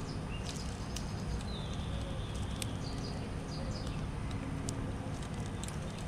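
Small birds chirping with short, high calls and brief whistled notes, mixed with sharp scattered taps of white-winged doves pecking seed off a wooden platform feeder, over a steady low background noise.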